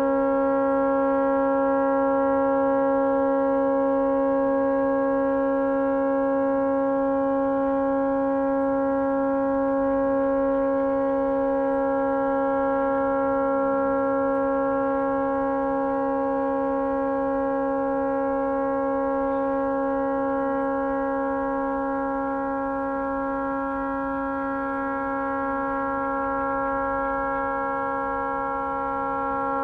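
Tugboat horn stuck on, sounding one steady, unbroken blast with several tones at once. The horn has malfunctioned and cannot be shut off.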